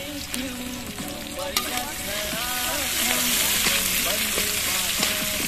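Sliced onions sizzling in hot oil in a metal kadai while a metal spatula stirs and scrapes them, with one sharp clink of the spatula against the pan about a second and a half in.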